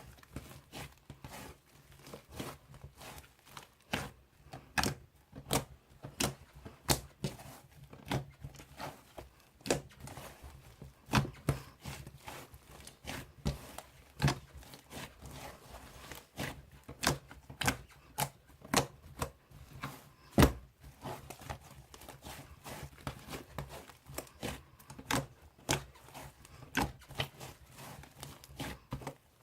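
Slime being squeezed, poked and stretched by hand, with irregular sharp pops and crackles several times a second over a faint low hum.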